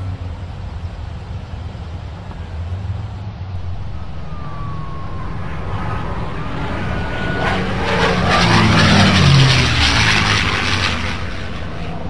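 A propeller aeroplane passing by: a rushing noise builds to its loudest about nine seconds in and fades, while its pitch falls steeply as it goes past.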